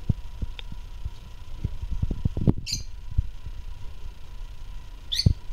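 Peach-faced lovebird giving two short, high chirps about two and a half seconds apart, over low thumps and rustling.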